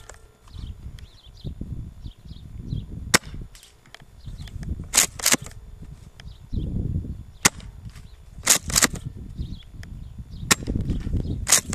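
Tokyo Marui M870 gas airsoft shotgun firing six-BB shells and being pumped: sharp pops and clacks in about three evenly spaced shot cycles. Wind rumbles on the microphone.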